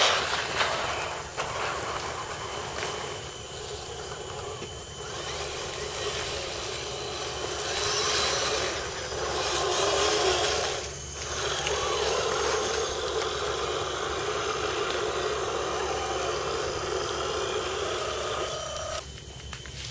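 Electric motors and gearboxes of scale RC crawler trucks whining as the trucks climb over dirt and leaf litter. The sound swells to its loudest about halfway through as a truck comes close.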